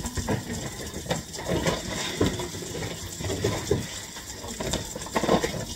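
Dry jasmine rice being scooped out of its bag with a cup: a run of irregular rustles and grain patter.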